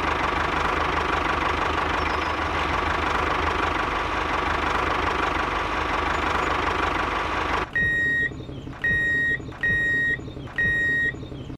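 Diesel tractor engine running steadily. About eight seconds in it drops to a quieter idle, and four electronic reversing beeps sound, each about half a second long.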